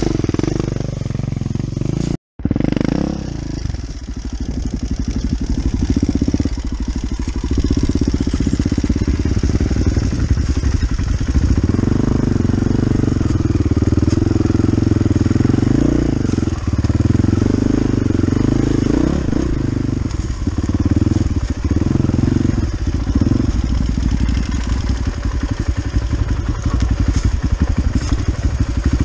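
Motorcycle engine running steadily under way, its firing pulses continuous throughout, with a brief total cut-out of the sound about two seconds in.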